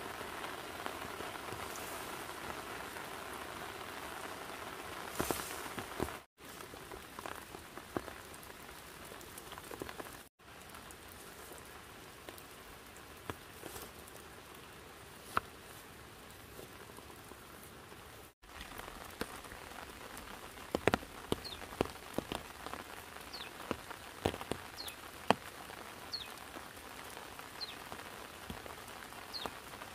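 Light rain falling in a steady patter, with many sharp single drops ticking from about two-thirds of the way in.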